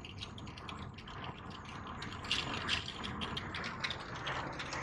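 Inside a moving car: a steady low road and engine rumble with quick, irregular clicks and rattles.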